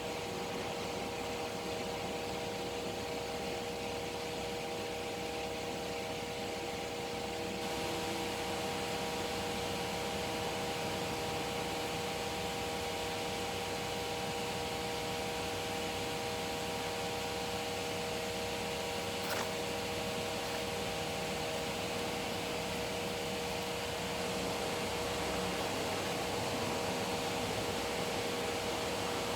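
Stick-welding arc on 2.2 mm electrodes, a steady sizzling hiss over a constant hum; the hiss grows brighter about seven and a half seconds in.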